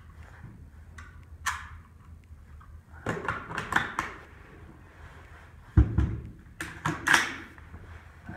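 Metallic clicks and clacks of an AR-style 6.5 Grendel rifle being loaded and handled, with a clatter about three seconds in and a heavier clunk a little before six seconds.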